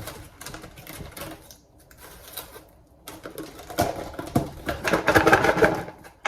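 A lidded plastic salad container being handled: scattered light clicks and rustles, then from about three seconds in a fast, irregular rattle that grows louder as the dressed salad is shaken in it.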